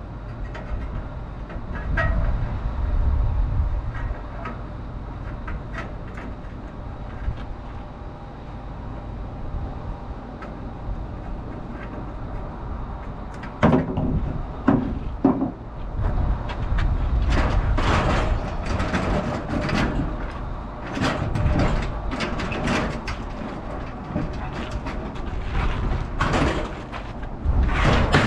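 Metal scrap being pulled from a pickup bed: a low rumble with a few scattered knocks, then from about halfway on frequent, irregular clanks and scrapes of sheet metal being shifted and dropped.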